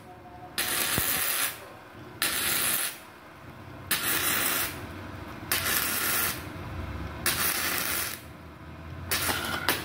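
Gasless flux-core MIG welding arc on thin galvanized steel sheet, struck six times in short stitch welds, each a burst of crackling spatter under a second long with pauses between. The inverter welder is set at about 74 A, which the welder afterwards judges still too high.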